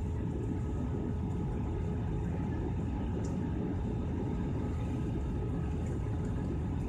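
Jet airliner cabin noise in flight: the steady low rumble of engines and airflow heard from a window seat over the wing, with a faint steady hum above it.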